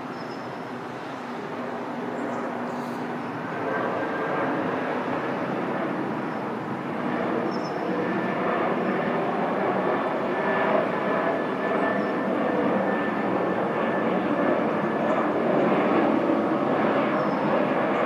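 Airplane engines running, growing steadily louder as the aircraft comes closer.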